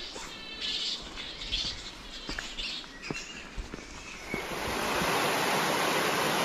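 Outdoor bush ambience with bird chirps and a few faint clicks. About two-thirds of the way through, a loud, steady rushing noise comes in and covers them.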